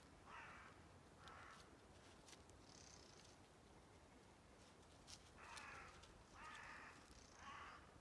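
Faint crows cawing: two harsh caws near the start, a pause, then three more from about five seconds in.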